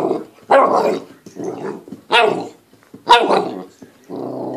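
Nine-week-old golden retriever puppy barking in play, five barks about a second apart.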